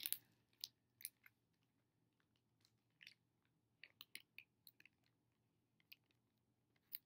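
Faint, scattered soft clicks of a person quietly eating a snack with the mouth closed, with a small cluster about four seconds in.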